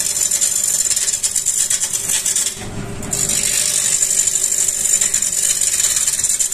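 Turning tool rough-cutting a long laminated timber post spinning on a wood lathe: a steady, hissing rip of shavings with a rapid rattling tick. The cut drops off briefly about two and a half seconds in, then resumes.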